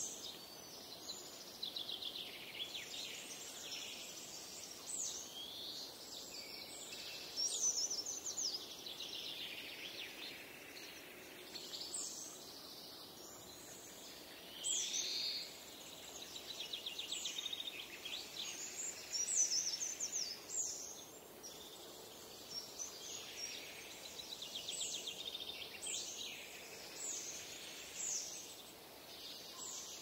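Several songbirds singing and calling at once: quick high chirps, short downward-sliding notes and rapid trills overlapping, over a faint steady hiss of forest ambience.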